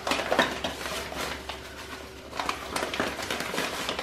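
Bag of non-fat powdered milk crinkling and rustling in irregular crackles as a measuring cup scoops powder out of it.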